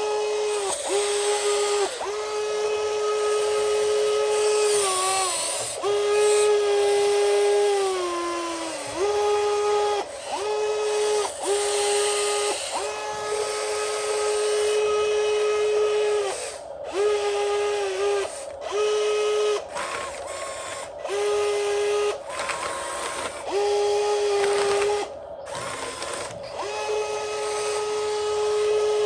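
Electric motor of a homemade RC Volvo EC160E excavator whining in repeated short runs, starting and stopping many times as it is worked. The pitch sags downward a couple of times.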